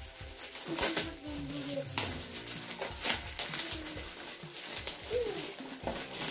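Gift-wrapping paper being ripped and crinkled by hand in short tearing bursts about a second apart, with a few short wavering tones in between.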